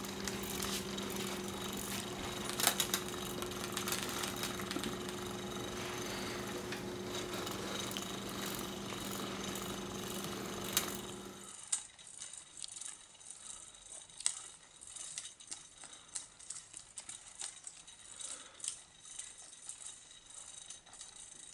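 Motor of a battery-powered fluttering butterfly cat toy buzzing steadily, with a rattle and clicks from the toy as it swings. About halfway the buzz stops and only quieter scattered clicks and taps remain.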